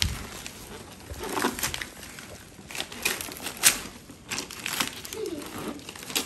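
Wrapping paper being torn and crinkled off a gift box, in irregular rips and rustles.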